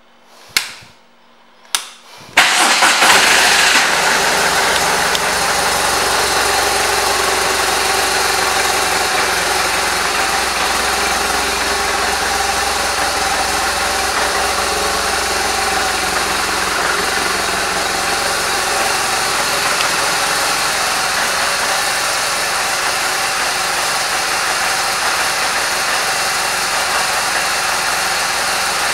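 BMW R 1200 RT's boxer twin engine started after two short blips: it catches about two seconds in, runs a little harder for a second or two, then settles into a steady idle.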